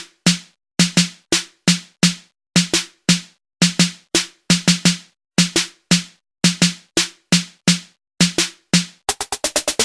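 Drum-machine pattern from a Native Instruments Maschine: a sharp snare-like hit with a short pitched ring, repeating two to three times a second with no kick under it. About nine seconds in it runs into a fast roll, a build-up.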